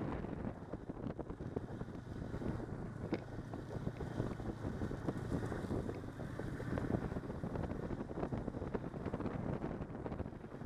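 Snowmobile engine and track running steadily while riding over packed snow, with wind buffeting the microphone.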